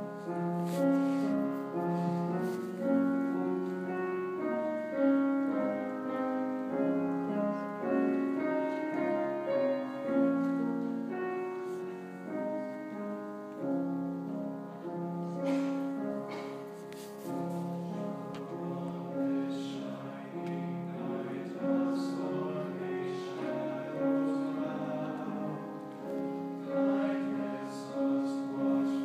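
Mixed choir of men's and women's voices singing in held chords that change every second or two.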